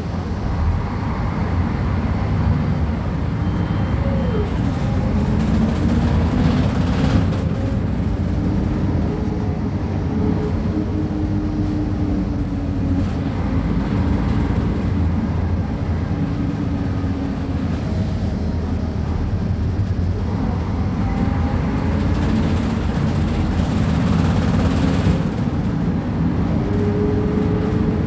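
Mercedes-Benz O500UA articulated bus's diesel engine and ZF Ecomat automatic driveline running under way: a steady low drone, with a fainter whine that slowly rises and falls in pitch as the bus speeds up and slows.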